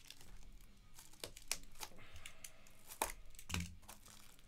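Cellophane wrap being picked at and torn off a trading card box: crinkling with several sharp crackles, the loudest about three seconds in. The wrap is stubborn and hard to get off.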